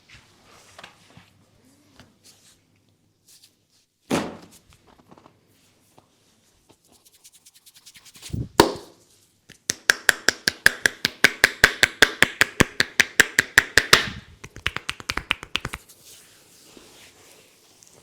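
Hands striking a person's head in percussive Indian head massage: two single slaps, then a fast, even run of tapping strikes, about eight a second, for around six seconds.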